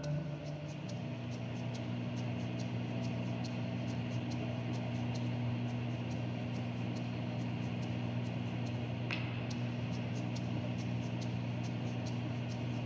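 Steady low electronic drone on a few held pitches, with soft ticks at about three a second over it and one short, higher sound about nine seconds in.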